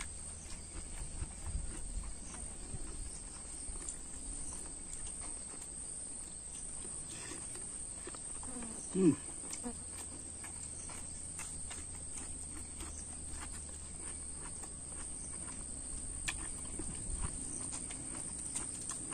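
Close-up eating sounds of a man eating with his hand: chewing and small wet clicks and smacks of the mouth. About nine seconds in comes one brief louder vocal sound that falls in pitch, the loudest moment.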